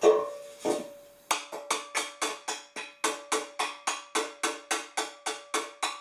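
Hammer blows on a dented metal exhaust pipe end fitted with a square steel plate, battering it out round. Two separate blows at first, then from about a second in a steady run of about four ringing strikes a second.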